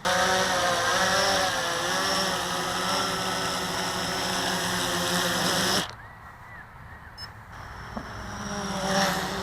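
Blade 350 QX quadcopter's motors and propellers whining up close, the pitch wavering as the throttle changes. It cuts off suddenly about six seconds in, then the whine swells again near the end.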